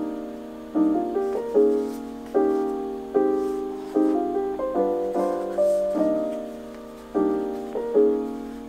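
Lo-fi background music: soft piano chords struck and left to ring, a new chord about every second.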